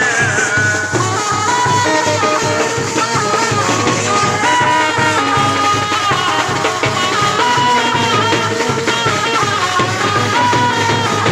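Live band music: marching bass drums beating a steady rhythm under a high, wavering melody line.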